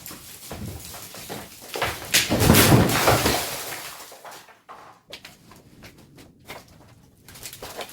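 A loud, clattering crash about two seconds in, lasting over a second, followed by scattered knocks.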